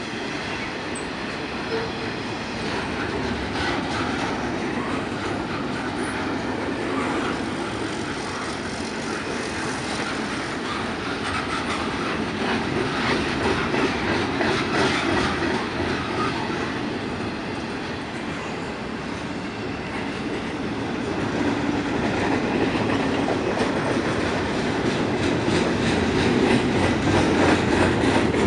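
Double-stack container well cars of a freight train rolling past close by, their wheels clacking steadily over the rail joints, getting louder near the end.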